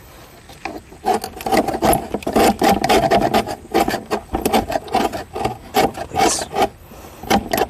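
Rapid rasping, scraping strokes worked against the portable refrigerator's body, starting about a second in and going on in quick runs of many strokes.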